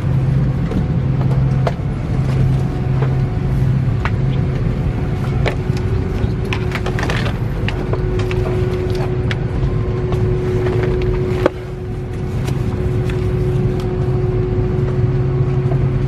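Steady low drone of an Airbus A330-200's cabin air conditioning while parked at the gate, with a thin steady tone above the hum. Scattered clicks and knocks come from passengers stowing bags in the overhead bins, the sharpest about eleven and a half seconds in.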